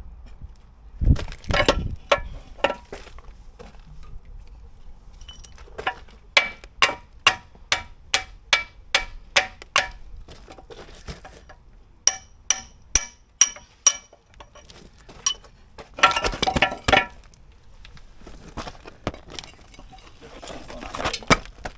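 Hammer striking steel with a ringing clang, in runs of about two blows a second, as worn pivot pins are knocked out of a mini excavator's digging arm. Denser bursts of metal clatter come a few seconds before the end and again at the end.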